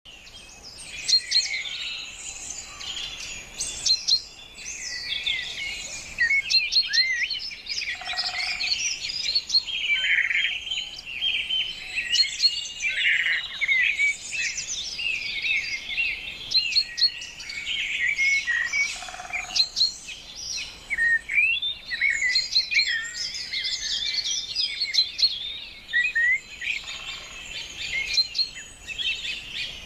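A chorus of many birds chirping and singing at once, dense overlapping chirps, short trills and quick whistled glides with no pause.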